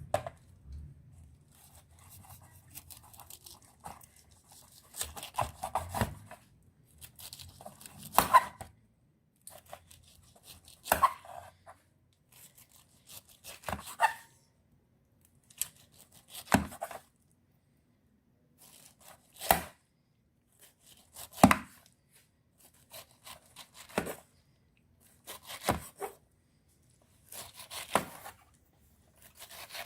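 Kitchen knife slicing a pineapple into rounds: crunchy cuts through the fruit, each ending in a sharp knock, about every two to three seconds.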